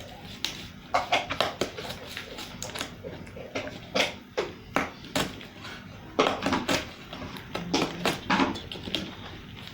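Irregular light taps and clicks: hand-handling noises of paper and cardboard being worked on a small craft build.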